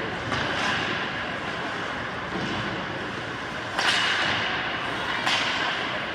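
Ice hockey play in an arena: a steady wash of rink noise broken by three sharp cracks of sticks and puck, one just after the start and two more about four and five seconds in, the second of them the loudest.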